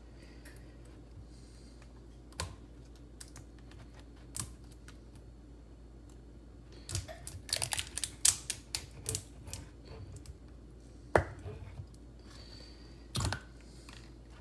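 Plastic shrink seal being picked at and torn off the cap of a rice vinegar bottle by hand: scattered small clicks and crackles, with a dense run of them about seven to nine seconds in and two sharp clicks later on.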